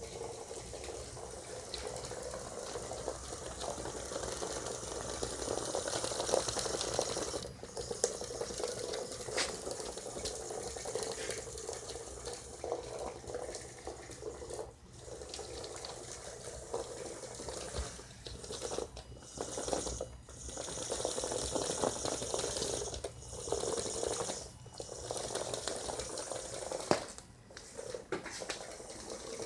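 Small battery-powered robot tank driving: its DC gear motors whirring and the plastic tracks rattling, stopping and starting several times in short breaks.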